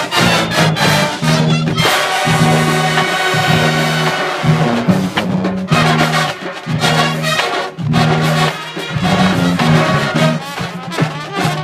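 College marching band playing a funk medley: loud brass with a repeating low brass bass figure and sharp drum hits.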